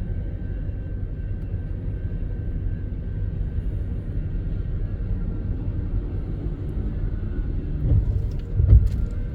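Metrolink commuter train rolling past with a steady low rumble, and a couple of heavier thumps near the end.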